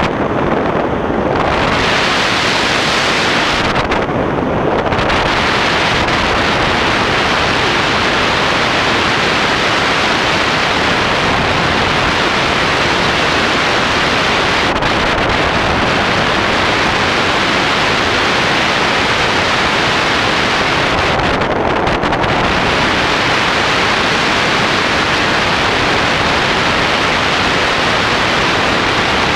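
Steady rush of airflow buffeting the microphone of a camera on a tandem hang glider in flight. The high part of the hiss thins out briefly a few times.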